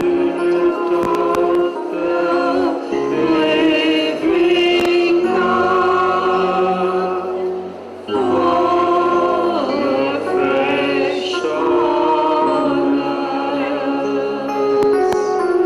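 Gospel worship music with a choir singing in held notes, in two long phrases with a brief pause about halfway through.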